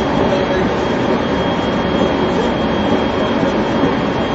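Running noise of a JR 373 series electric train heard from inside the passenger car: a steady rumble and hiss of wheels, motors and air, with a thin steady high tone over it.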